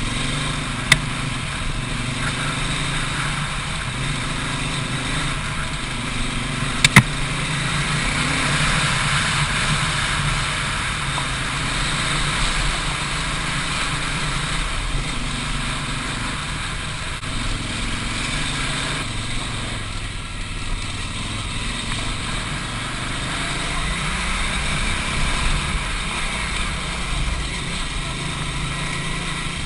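Big adventure motorcycle ridden on a dirt trail, its engine note rising and falling as the throttle opens and closes, under a steady rush of wind and tyre noise. Sharp knocks about one second and again about seven seconds in.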